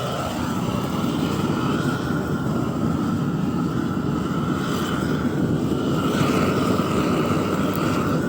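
Gas blowtorch burning with a steady, even hiss, charring wooden posts to keep them from rotting.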